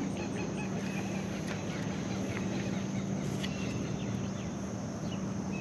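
Outdoor ambience of scattered bird chirps and insect calls over a steady low hum.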